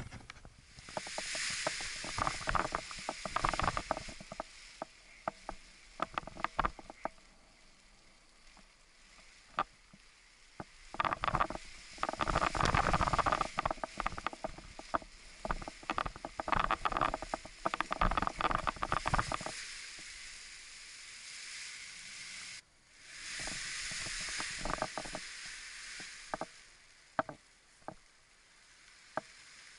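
Wind gusting over the microphone, with rapid crackling and rustling from the Edel Power Atlas paraglider wing's canopy fabric, densest in the middle. The sound cuts off abruptly about two-thirds of the way through, then the wind noise resumes.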